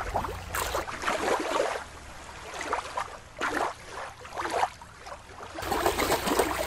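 Shallow water sloshing and splashing in repeated swells about once a second, louder near the end as a toy is splashed through it by hand.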